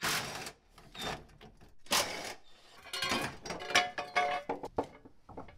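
Short bursts of a cordless impact driver on the running-board bolts, then metal clanking and a brief squeal as the steel running board is worked off its brackets.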